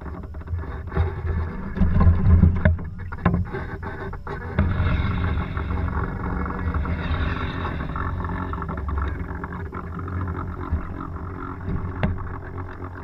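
Sailboat under way: water rushing and splashing along the hull over a heavy low rumble, with a few scattered knocks.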